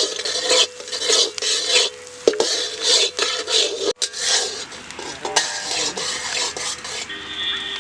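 A metal spatula stirring and scraping egg podimas around a pan, in repeated strokes about two a second, with a light sizzle of frying beneath.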